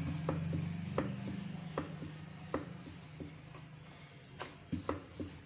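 Wooden rolling pin rolling dough on a wooden board: a low rumble that fades, with light irregular knocks of wood on wood.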